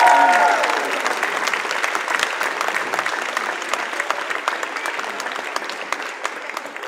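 Audience applauding after a winner is announced, with a cheering voice in the first half-second; the clapping thins out and fades away gradually.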